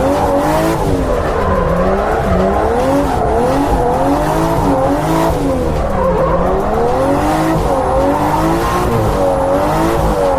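Car engine revving up and down over and over, its pitch rising and falling about once or twice a second, as the car is driven sideways through a drift with tyre noise underneath.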